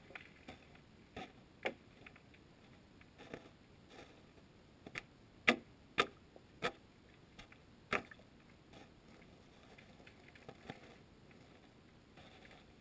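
Scattered sharp clicks and taps at an irregular pace, picked up underwater by a GoPro Hero 2 inside its sealed housing; the loudest come in a cluster in the middle.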